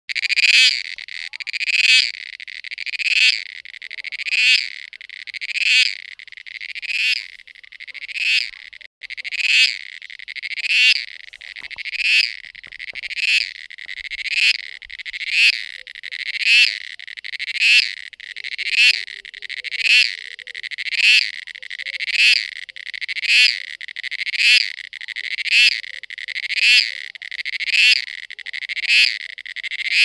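Cicada calling: a steady high buzz that swells into a louder pulse about every 1.3 seconds, over and over in an even rhythm.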